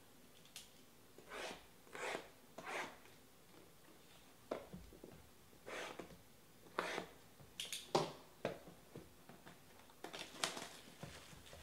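Cardboard trading-card boxes being handled, moved and opened by hand: about a dozen short scrapes, rustles and crinkles.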